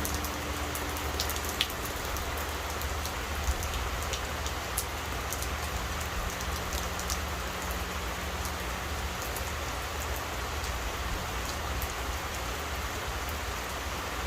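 Steady rainfall with scattered individual drops tapping nearby. Under it, the low hum of a large Buddhist temple bell dies away, fading out about nine seconds in.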